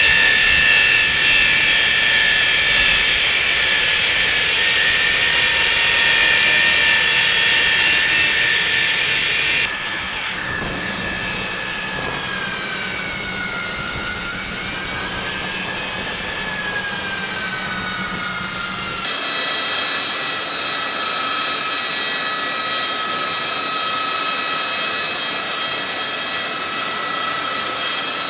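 AV-8B Harrier II's Rolls-Royce Pegasus turbofan running on the deck: a loud jet whine of several steady high tones over a rushing hiss. About ten seconds in the sound changes abruptly and the whine dips and rises in pitch for a few seconds, then about nineteen seconds in it switches back to a steady whine.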